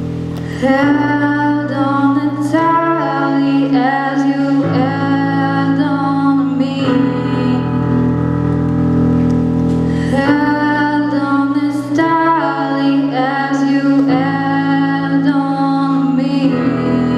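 A young woman singing a slow song into a microphone over a PA, accompanied by held chords on an electronic keyboard that change every few seconds. Her voice comes in about a second in, drops out for a few seconds midway while the keyboard carries on, then returns.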